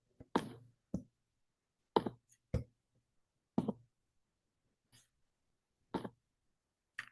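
Computer clicks and taps, about eight short irregular ones, as the slides are loaded.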